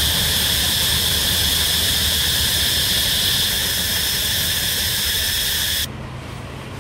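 Freight wagon wheels squealing steadily against the rails on a curve, a high ringing tone over a rushing hiss. It cuts off suddenly about six seconds in, leaving a quieter low hum.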